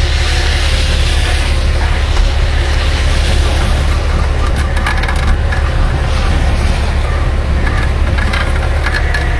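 Tow truck's engine running steadily with a constant low hum, overlaid by a continuous crackling, crunching noise.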